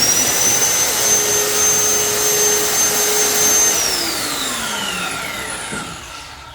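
Ryobi 7¼-inch corded circular saw running free at full speed with a steady high whine. The trigger is let go a little under four seconds in, and the blade coasts down with a slowly falling whine, slow to stop.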